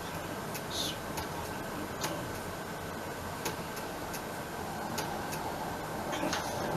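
Steady hiss of room and microphone noise with a faint steady high tone, broken by a few soft clicks at uneven intervals.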